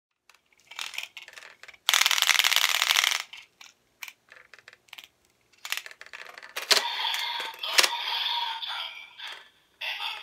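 Plastic clicks and rattles from a DX Evol Driver toy belt and its bottles being handled, with a dense rattle lasting about a second near the start. In the second half the bottles click into the belt's slots and the belt's own electronic sound starts playing through its small speaker.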